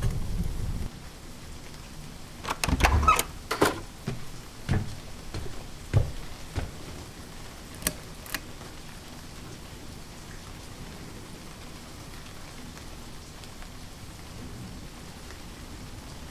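A steady rain-like hiss throughout. A low rumble at the start cuts off abruptly under a second in. About three seconds in comes a cluster of knocks and creaks, followed by a few separate thumps and two sharp clicks near the eight-second mark.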